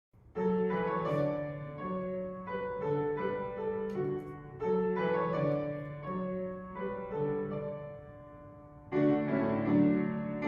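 Piano music starts abruptly from silence: slow, sustained chords that change every second or two, getting fuller and louder about nine seconds in.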